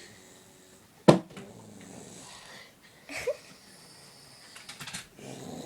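A child snoring, with rough, wheezy breaths, one drawn in near the end. A sharp click about a second in is the loudest sound.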